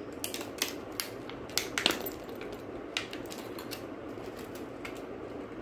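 Small packaging being handled and pried open by hand: a run of sharp clicks and crackles, densest in the first two seconds and sparser after, as the box resists opening.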